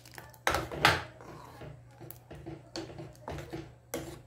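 A ladle stirring thick gravy in an aluminium pressure cooker, knocking and scraping against the pot's sides; two loud knocks about half a second and a second in, then softer knocks at irregular intervals.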